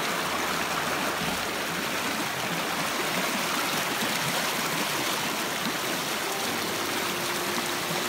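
Muddy, rain-swollen floodwater rushing and churning across a dirt road: a steady, even rush of running water.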